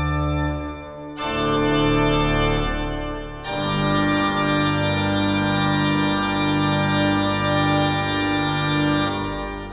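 Background music of sustained organ-like chords, changing twice, fading out near the end.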